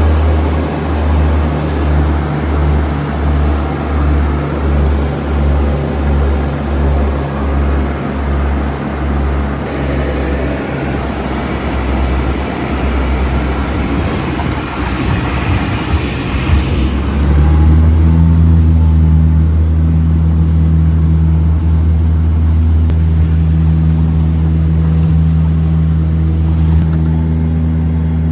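Engine noise aboard a moving craft. A low drone throbs about twice a second at first. About halfway through, a high whine rises and levels off over a steadier, louder low engine hum.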